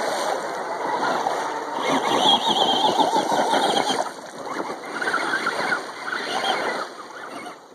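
Radio-controlled monster trucks churning through a shallow creek, water splashing and spraying right at the microphone, with the trucks' motors whining under the splash. The noise eases near the end.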